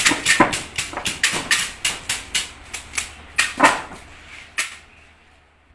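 Bamboo slicer-planer machine running with a steady low motor hum and a rapid, irregular series of sharp clacks as bamboo is worked. The clacks stop about four and a half seconds in, and the hum dies away near the end.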